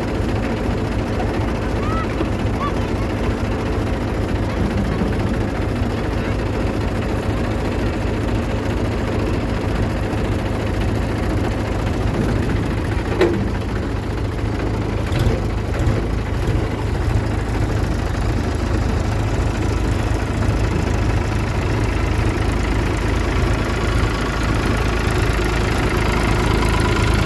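A tractor engine running steadily, growing a little louder near the end.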